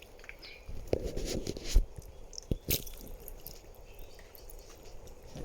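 Hands splashing and rummaging in shallow muddy water, with scattered knocks and a loud thump a little under two seconds in.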